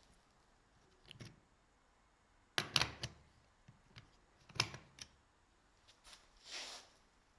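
A few short, sharp clicks and knocks, the loudest a quick cluster about two and a half seconds in and another just before five seconds, followed by a brief soft swish near the end.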